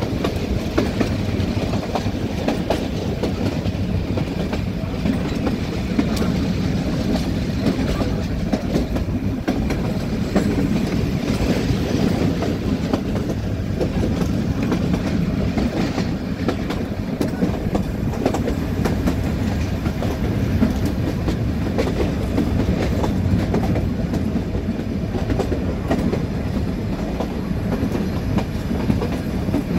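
Nilgiri Mountain Railway train running steadily, a constant rumble with wheels clacking over the rail joints, heard from inside a carriage.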